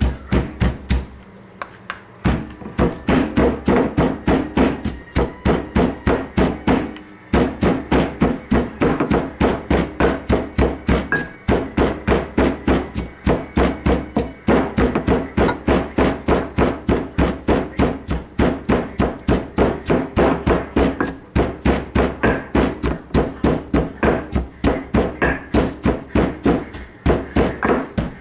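Wooden pestle pounding in a mortar to make green papaya salad: a steady run of knocks at about three a second. It starts after a couple of quieter seconds and pauses briefly a few times.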